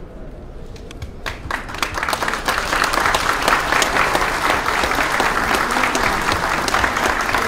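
Seated audience applauding: a few scattered claps about a second in, quickly building to steady, full applause.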